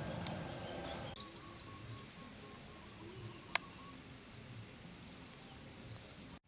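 Faint outdoor ambience: a steady high insect drone with small wavering chirps over it, and one sharp click about three and a half seconds in.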